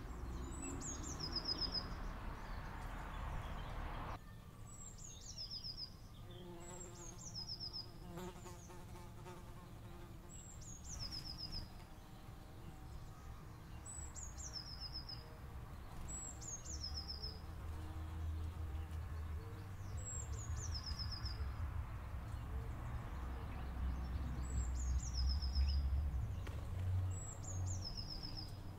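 A small songbird sings the same short, high song over and over, about every two seconds: a quick descending run of notes ending in a brief trill. A low rumble runs underneath and grows louder in the second half.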